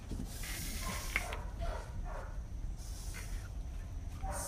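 A dog breathing noisily in a couple of short breathy bursts, with a few brief faint squeaks.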